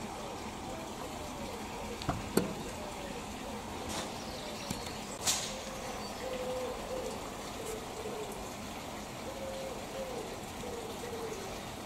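A pigeon cooing repeatedly in the background. A few sharp clicks and knocks break in, the loudest about two and a half and five seconds in, from small sheet-metal model parts being handled.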